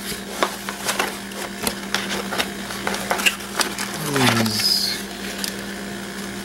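A cardboard box being opened by hand: flaps lifted and folded back with crackles, taps and rustles of cardboard, and a plastic touchscreen alarm keypad slid out of its packaging. A short falling squeak about four seconds in.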